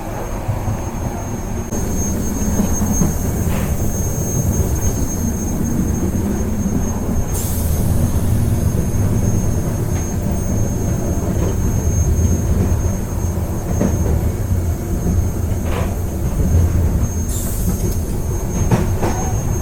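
Train carriage running along the track, heard from on board: a steady low rumble with a thin high whine. There are brief hisses twice and a few short clicks or squeaks.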